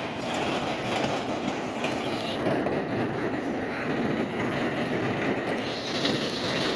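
A train passing close by: steady rumble and clatter of wheels on the rails, with a hissing, higher-pitched edge coming in near the end.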